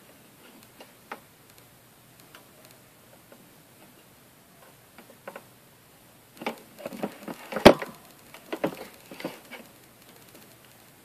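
Handling noise from small objects worked over paper on a tabletop: a few faint ticks, then a burst of taps, knocks and rustles about two-thirds of the way through, with one sharp click the loudest.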